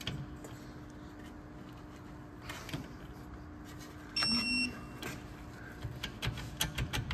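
Quiet workshop room tone with a steady low hum and a few faint clicks. About four seconds in comes a short electronic beep lasting about half a second. Light clicking and tapping of handled parts builds near the end.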